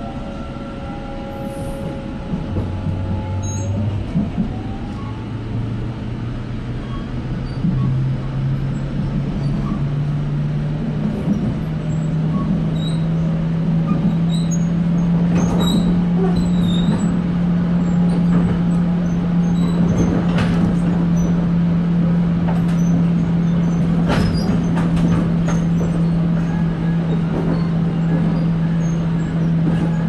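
Electric commuter train pulling away and gathering speed, heard from inside the carriage. The traction motors whine in a pitch that climbs in steps and then settles into a steady hum. Sharp wheel clicks over the rail joints come in from about halfway through.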